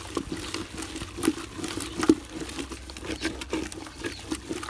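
A wooden masher stirring and mashing thick cooked saag greens in an aluminium pot: irregular wet knocks and squelches, several a second.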